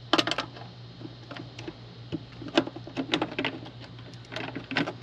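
Irregular metallic clinks and rattles, in several short clusters, as snow-chain links and bolt hardware are handled on a truck-mounted chain hanger.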